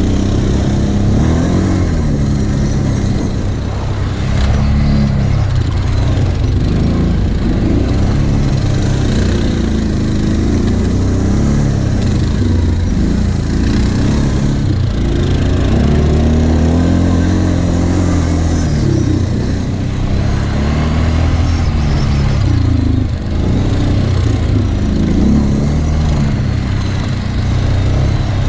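Quad bike (ATV) engines being ridden hard over a sandy off-road trail, the revs rising and falling again and again as the throttle is opened and eased off.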